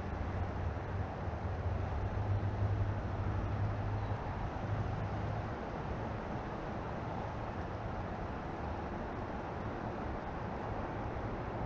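Low, steady rumble of distant road traffic, swelling about two to four seconds in as a vehicle passes, then settling back to a constant hum.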